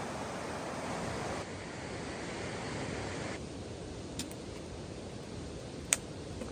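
Steady hiss of autumn rain falling on a camp tarp, which drops away partway through. Two sharp pops from a wood campfire follow, the second louder, near the end.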